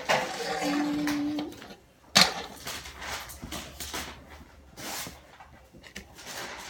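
Scattered handling noises and knocks, with one sharp loud knock about two seconds in and a brief steady hum near the start.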